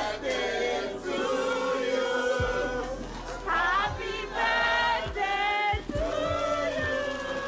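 A group of voices singing together, like a choir.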